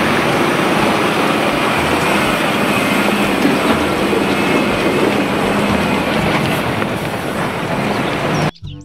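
A heavy vehicle's steady, loud rumble, cutting off suddenly near the end.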